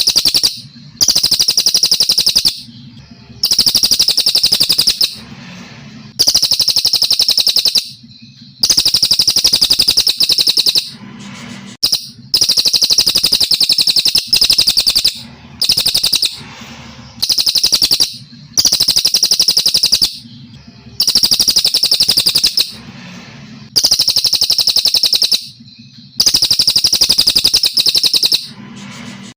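Brown cililin singing: long, rapid, high trilled phrases of about one to one and a half seconds each, repeated after short pauses.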